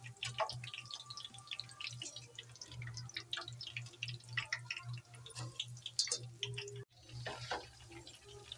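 Gram-flour boondi frying in hot oil: a dense, irregular crackle of small pops and sputters over a steady low hum.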